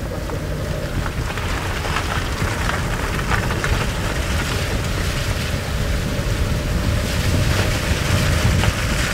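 Road and wind noise of a moving car: a steady low rumble with a faint constant hum.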